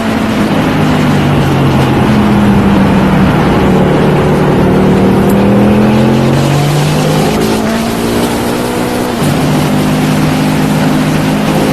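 Ducati V4 motorcycle engine running loud and steady, its note slowly rising and falling in pitch, with an abrupt shift in pitch about nine seconds in.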